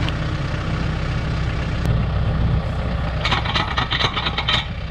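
TYM 574 compact tractor's diesel engine idling steadily. About three seconds in comes a quick rattle of metal clinks as a steel hitch pin is pushed through the hay rake's tongue and the tractor's drawbar.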